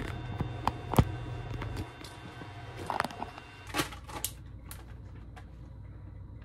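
Handling noise: clicks and knocks as a phone camera is gripped and set in place, then the crackle and clicks of a clear plastic egg pack being picked up and turned in the hands, over a faint steady hum.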